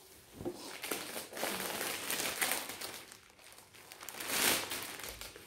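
Clear plastic wrapper crinkling as a folded saree is handled in it, with louder stretches about two seconds in and near the end.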